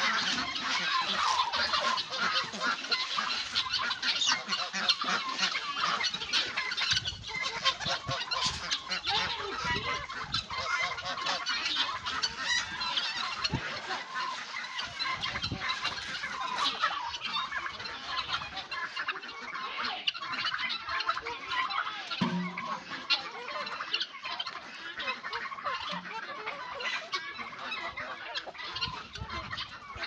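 A mixed flock of farmyard poultry (chickens, turkeys, geese and ducks) calling over one another at feeding time, a dense, unbroken babble of clucks, gobbles and honks, with many short clicks among the calls.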